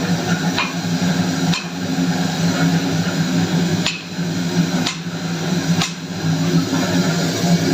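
Hammer blows on metal, about five irregularly spaced strikes, each with a short ring, over a steady machine hum.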